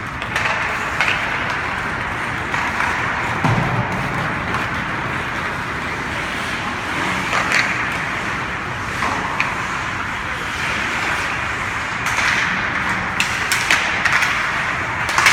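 Hockey game on a rink: a steady hiss of skates and rink noise, with scattered sharp clacks of sticks and puck, more frequent near the end.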